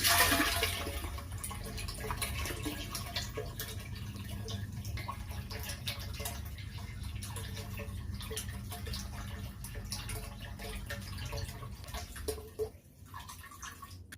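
Water splashing and trickling into a tank as it fills, over a steady low electric hum from the water pump. The splashing eases off near the end.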